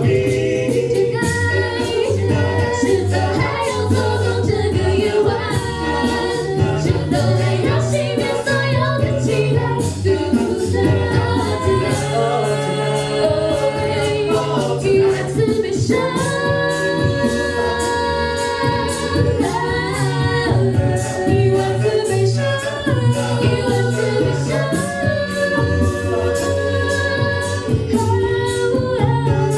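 A cappella vocal group singing a pop song in several parts, with a sung bass line under the harmonies and a steady beat.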